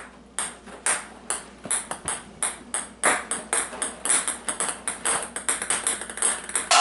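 Ping pong balls bouncing on hard surfaces: a run of sharp, light ticks, a few a second at first, coming thicker and overlapping in the second half as several balls bounce at once.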